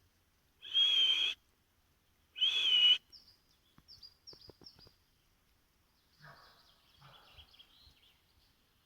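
Wild birds calling: two loud, rough calls about a second and a half apart, followed by a quick series of short, high, falling chirps and then softer twittering.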